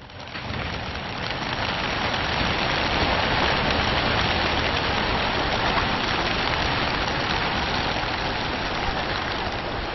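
A large flock of racing pigeons taking off all at once from a transport trailer: a dense clatter of wingbeats that builds over the first couple of seconds and then holds steady.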